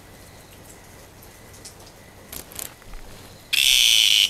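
Cicada giving a loud, steady distress buzz that starts suddenly about three and a half seconds in, the call it makes when it feels threatened. Before it, only a few faint clicks.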